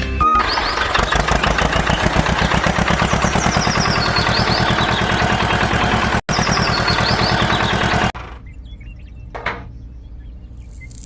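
An engine running with a fast, even chugging beat, which cuts off abruptly about eight seconds in.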